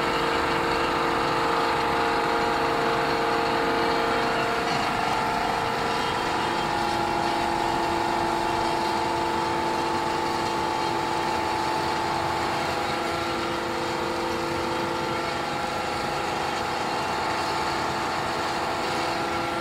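Plastic granule (gitti) extruder running, its electric drive and reduction gearbox turning the screw: a steady mechanical drone with several constant whining tones.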